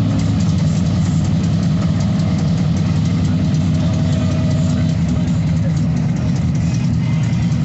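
Sand-drag race Jeep's engine idling steadily, with no revving.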